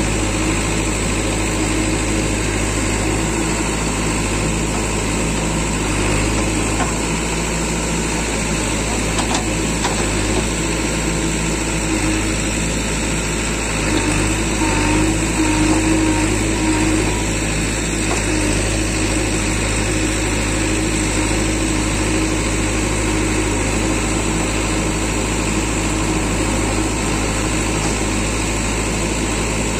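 JCB 3DX backhoe loader's diesel engine running steadily while the rear digging arm works. The engine grows a little louder for a few seconds around the middle, as under heavier hydraulic load.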